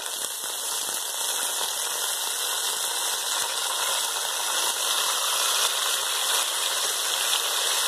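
Raw chicken pieces frying in hot oil in a karahi, with a steady sizzle that grows slightly louder.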